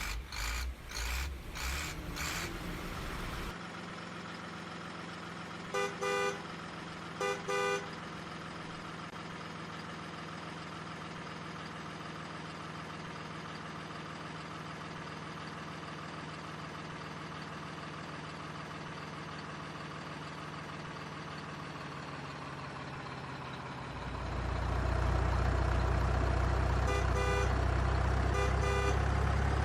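Heavy vehicle engine running steadily, with two short double horn toots a few seconds in. Near the end the engine gets louder and deeper, and two more short toots follow.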